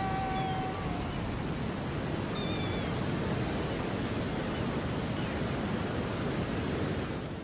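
Steady wash of sea surf and wind. A held musical note fades out in the first second, and faint short falling whistles come about two and a half seconds in.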